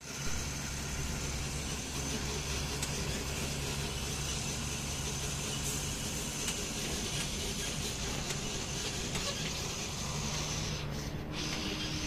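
Old Ashok Leyland tractor-trailer truck's diesel engine running steadily as the rig drives along, with road and wind noise, heard from the trailer just behind the cab.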